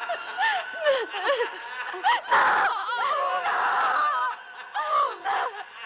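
Hysterical female laughter and shrieking in short, rising-and-falling bursts, with two harsher, rasping cries about two and three and a half seconds in.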